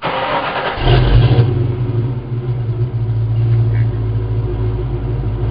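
A 1995 Mustang GT's 302 V8, breathing through stock headers, a Pypes X-pipe and a Flowmaster American Thunder cat-back, is started: a brief spell of cranking noise, the engine catches about a second in with a short rise in revs, then settles into a steady, deep idle rumble.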